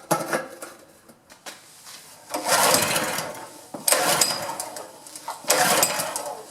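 Honda GX200 single-cylinder engine on a pressure washer, pull-started three times, each time running for about a second and dying. It is starved of fuel, which the owner puts down to a carburetor clogged from sitting ten years.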